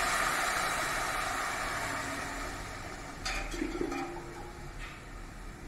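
Water poured from a glass into a hot aluminium pressure cooker of fried rice and peas, a splashing rush that gradually dies away. A short knock with a brief ring comes about three seconds in.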